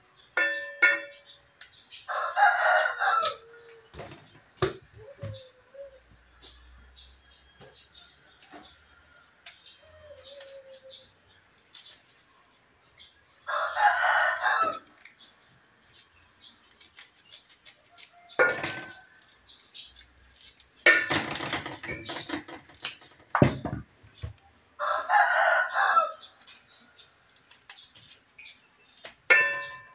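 A rooster crowing three times, each crow about a second or more long and spaced roughly twelve seconds apart. Between the crows come sharp knocks and a burst of clatter, loudest around two thirds of the way through.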